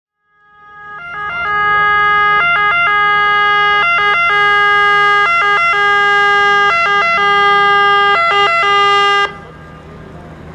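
Italian fire engine's two-tone siren alternating between a high and a low note, swelling in over the first second or so and loud. It cuts off abruptly about nine seconds in, leaving the truck's engine and road noise.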